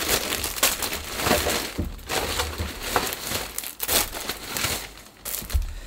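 Plastic supermarket carrier bags rustling and crinkling as groceries are pulled out of them, with a few sharp knocks in between.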